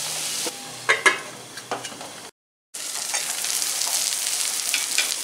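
Lamb brain pieces with onions and spices sizzling in oil in a pan, with a brief clatter about a second in. The sound drops out for a moment a little past halfway, then the frying hiss comes back steadier.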